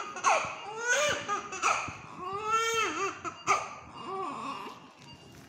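Infant crying in a run of short, pitched wails and sobs, growing quieter over the last couple of seconds.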